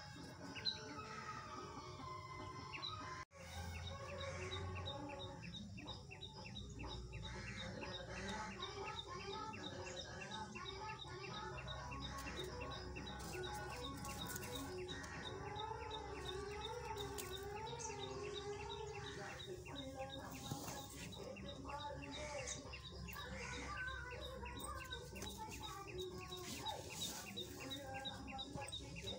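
Outdoor ambience of chickens clucking and small birds chirping throughout, with a brief sharp click about a second in.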